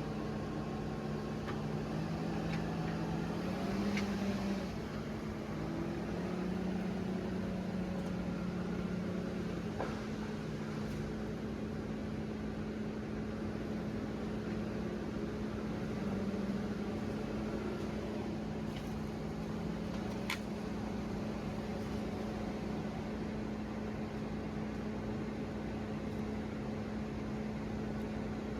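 Diesel engines of heavy logging machinery (bulldozer and excavator) running: one held at a steady pitch while another's pitch shifts up and down a little as it works. A few faint knocks come through, about four, ten and twenty seconds in.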